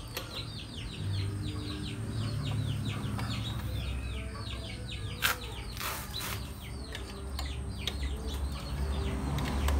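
Small birds chirping rapidly and steadily, many short falling calls a second. Around the middle there is a sharp click, then a brief scrape.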